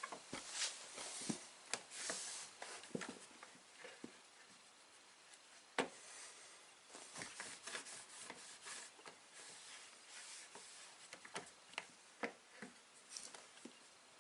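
Plastic parts of a Miele washing machine's TwinDos detergent dispenser being handled: scattered clicks, light knocks and rubbing, with one sharp click about six seconds in.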